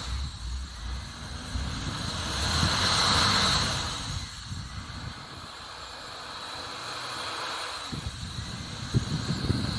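A 4x4 SUV's engine running as it works in deep snow, with a rushing hiss that swells and fades about three seconds in. A couple of sharp knocks come near the end.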